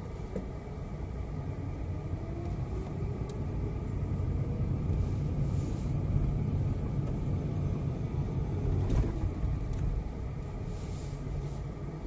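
Car driving: a steady low rumble of engine and road noise that grows a little louder over the first few seconds.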